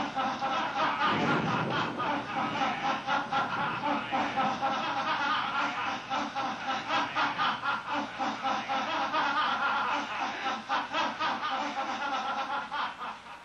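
A person laughing on and on in quick, rhythmic 'ha-ha' pulses, dying away near the end.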